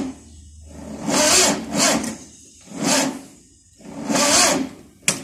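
Starter motor of a VW Type 4 air-cooled 2-litre engine whirring in several short bursts about a second apart, each time the jumper wire is touched to its solenoid. The engine does not catch: the battery is too low to crank it properly.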